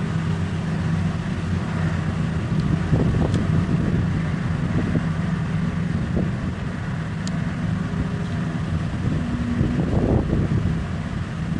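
Heavy mining machine's diesel engine running steadily, with a few short knocks and clatter now and then.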